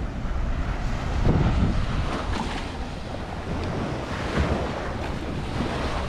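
Small waves washing onto a sandy beach, with wind buffeting the microphone. The wash swells louder about a second in, then eases.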